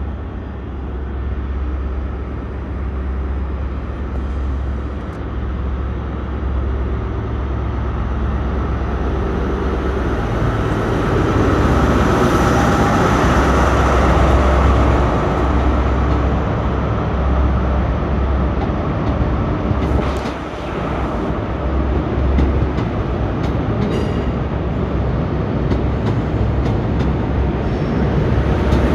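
Class 43 HST diesel power car pulling out, a steady low engine rumble that grows louder as it passes, then the coaches rolling by with scattered wheel clicks over the rail joints in the last third.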